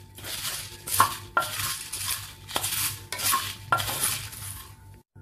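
A metal spatula stirs and scrapes whole dried red chillies and seeds around a clay pot as they dry-roast without oil: an irregular run of scraping strokes with the spices rattling. It stops shortly before the end.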